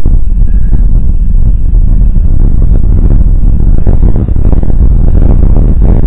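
Loud, steady low rumble on the nest camera's outdoor microphone, with a faint thin high whine running under it.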